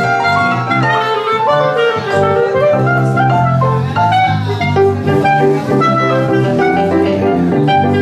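Jazz trio playing: clarinet carrying the melody over a digital piano and bass.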